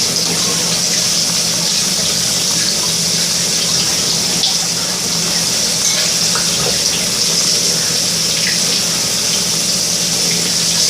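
Hot tap water running steadily into a sink over a block of ice, melting it.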